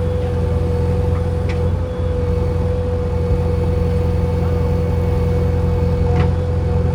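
Heavy diesel machinery running steadily at a building site: a low engine drone with a steady whine above it, and two brief sharp clinks.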